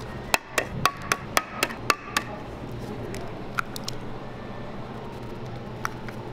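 Eggs cracked one after another against the rim of a clear mixing bowl: a quick run of about seven sharp taps in two seconds, then a few scattered taps later.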